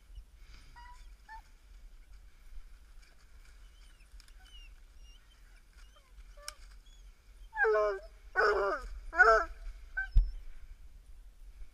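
A dog barking three times in quick succession in the second half, after faint high whines earlier on. A single dull thump follows the barks.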